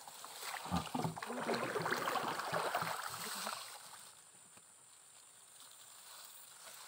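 Water splashing and sloshing at a small boat for about three seconds, then dying down.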